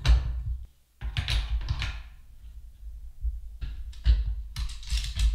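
Handling noise as imaging gear is fitted to a small refractor telescope: irregular knocks, clicks and rubbing of metal and plastic parts. It breaks off briefly just before a second in.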